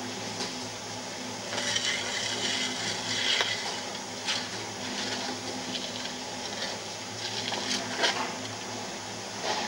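A steel trowel scraping and smoothing mortar against a wooden board and a rendered pillar, with several sharp knocks of the tools.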